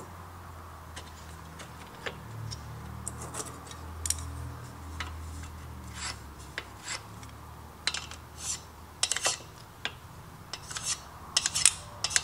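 A steel scribe scratching reference marks on a chopper's steel fender bracket and fender: a run of short rasping strokes that come faster and louder in the second half, over a low steady hum.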